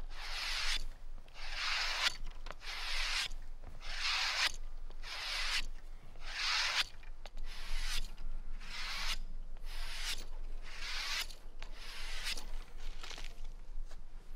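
A carbon steel knife blade stropped edge-trailing along the inside of a belt, a regular dry swish about three times every two seconds. This is the final honing stage, taking the last fine burr off the edge, and the strokes die away near the end.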